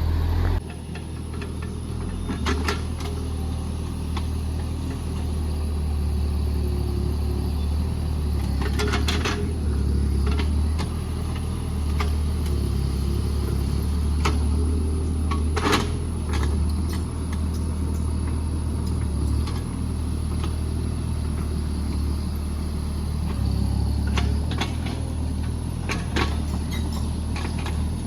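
JCB JS30 Plus mini excavator's diesel engine running steadily with a deep hum, with a few sharp knocks from the machine at work, the loudest about halfway through.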